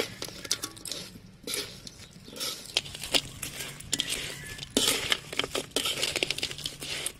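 Metal spoon stirring fried crabs in a wok: irregular scraping and clinking of metal on metal.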